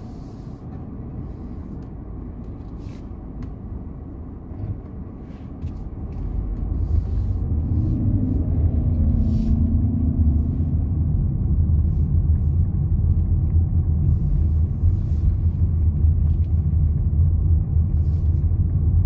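A car driving, heard from inside: a steady low rumble of road and engine noise that grows louder about six seconds in as the car speeds up out of a roundabout.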